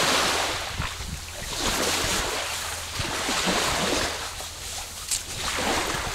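Surf washing in on a beach, swelling and fading in slow surges, with wind rumbling on the microphone.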